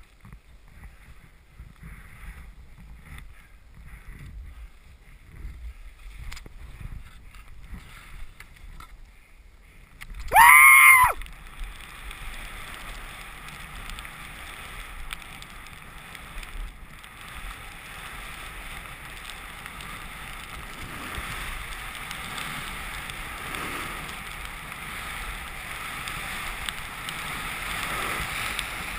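Skis running through deep powder snow, heard as a steady hiss with wind on the helmet camera's microphone that slowly builds as the skier picks up speed from about eleven seconds in. Before that there is only faint rustling, broken about ten seconds in by one brief loud shout.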